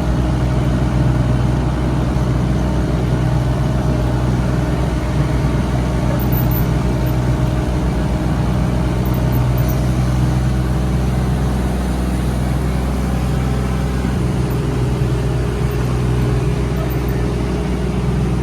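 An engine running steadily, with an even low hum and no change in speed.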